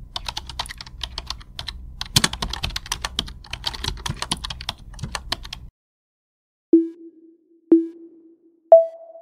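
Computer keyboard typing sound effect: rapid keystrokes for about five and a half seconds as text types itself out. Then three countdown beeps a second apart, the first two at one pitch and the last one higher.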